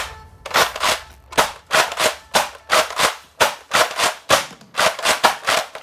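Nerf Rival foam-ball blaster being cycled and fired over and over: a fast run of sharp plastic clacks, about four a second and often in pairs. A liquid-nitrogen-frozen foam ball is jammed in the barrel, so each pull fires nothing out.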